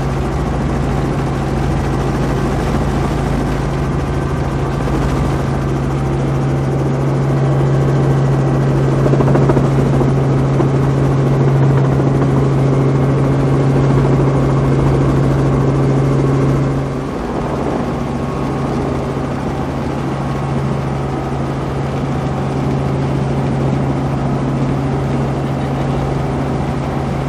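Robinson R44 helicopter heard from inside the cabin, its rotors and six-cylinder piston engine running steadily with a constant low hum. About seventeen seconds in the sound drops a little in level and changes slightly.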